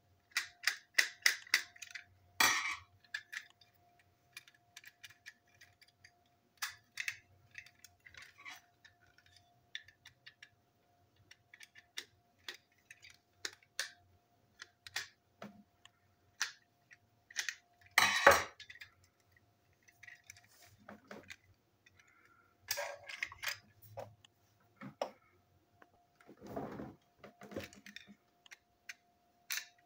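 A small toy train coach being taken apart by hand with a thin screwdriver: a run of light clicks and taps from the tool and small plastic and metal parts. A quick flurry comes early, a louder knock about 18 seconds in, and a short scraping shuffle near the end.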